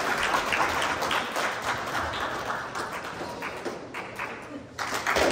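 Audience applauding, many hands clapping; the applause thins out and nearly dies away about four and a half seconds in, then swells again just before the end.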